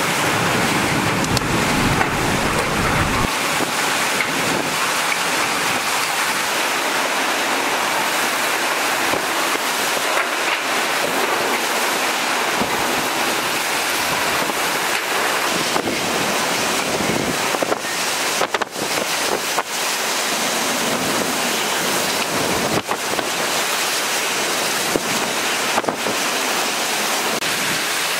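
Hurricane-force wind and wind-driven rain: a loud, steady rushing roar, with wind buffeting the microphone. The low rumble of the buffeting is heaviest in the first three seconds.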